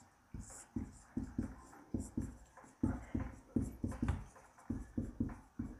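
Marker pen writing on a whiteboard: a quick series of short strokes and taps as words are written.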